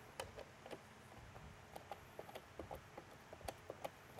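Faint, irregular small clicks and ticks, several a second, from a Phillips screwdriver working the small screws that hold a strobe beacon's power supply board to its plastic base.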